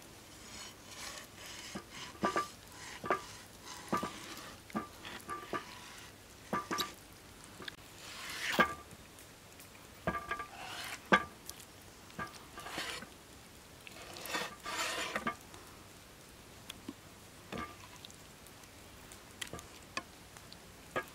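Large knife slicing raw beef on a wooden chopping board. The blade clicks and taps against the board over and over, some taps with a short metallic ring, between a few longer scraping strokes through the meat.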